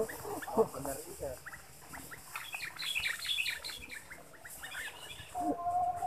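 Sooty-headed bulbul chirping: a quick run of many short, high, falling notes, with a steady whistled note starting near the end.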